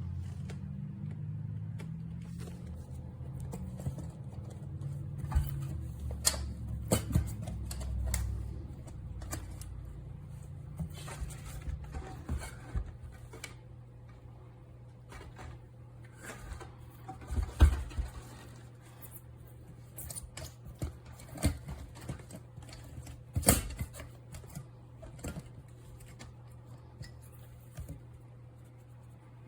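Scattered light clicks, taps and knocks from an electric grain mill being handled by hand while it is switched off, over a faint steady low hum. One sharper knock comes a little past halfway.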